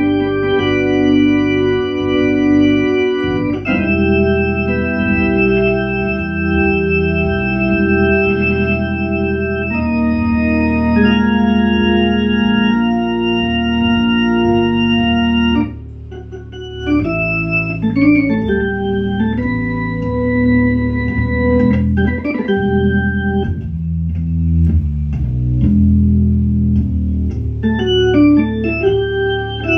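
Hammond organ (A100 cabinet with C2 manuals, the lower manual's first octave rewired to sound an octave lower) playing sustained chords over deep bass notes. About halfway through the sound drops away briefly, then shorter, changing chords follow.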